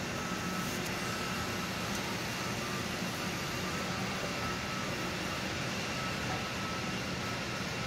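Steady hum and hiss of a large factory hall's background equipment and ventilation, with two faint steady high-pitched whines running through it.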